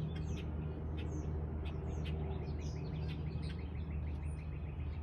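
Small birds chirping and twittering with quick high notes and a fast trill, over a steady low hum.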